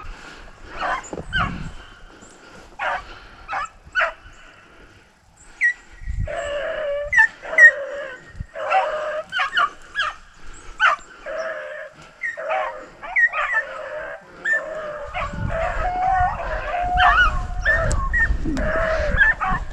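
A pack of beagles baying on a rabbit's scent trail. There are scattered yelps at first, then many dogs giving tongue together from about six seconds in.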